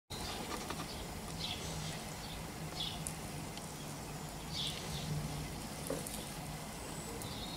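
Cattle barn ambience: a low steady hum with a few faint, short bird chirps every second or two.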